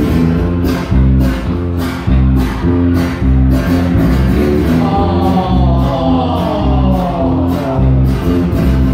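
A pop song played live and loud through a stage PA, with bass, guitar and a steady beat of about two strokes a second. A group of voices, men and children, sings together, most plainly about five to seven seconds in.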